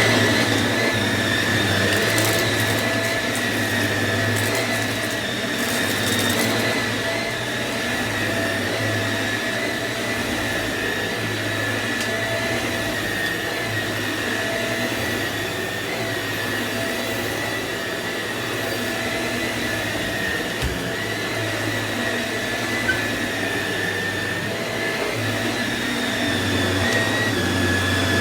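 Upright vacuum cleaner running steadily: a constant suction rush with a high motor whine.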